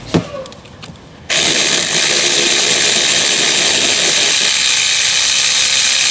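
A click, then about a second in a power tool starts and runs steadily for several seconds with a loud rushing whir, as a valve cover bolt is being worked.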